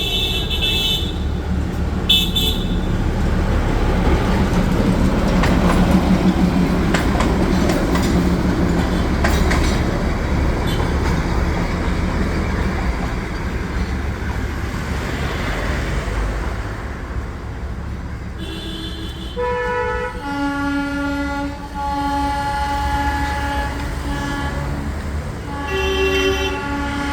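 Narrow-gauge toy train running with a steady rumble along the track. It sounds its horn with two short toots near the start, then a series of longer, repeated horn blasts over the last several seconds.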